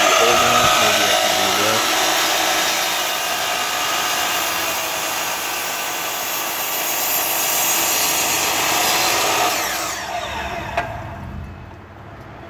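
DeWalt DW708 12-inch sliding compound miter saw with a 60-tooth Tomax blade, running at full speed and cutting through a piece of wood. About ten seconds in it is switched off and the blade winds down quickly, falling in pitch, with a sharp click near the end.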